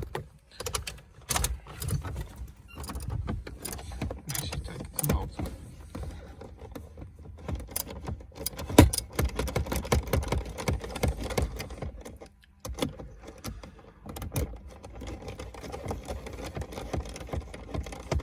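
Scattered clicks, knocks and plastic rattles of hands and a flathead screwdriver working the dashboard trim clips inside a car's cabin, with one sharper, louder knock about nine seconds in.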